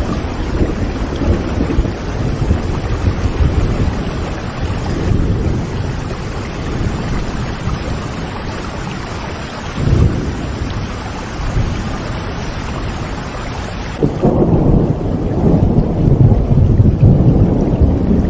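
Steady rain with low rolling thunder. About three-quarters of the way through, the hiss of the rain thins and a deeper, louder rumble swells up.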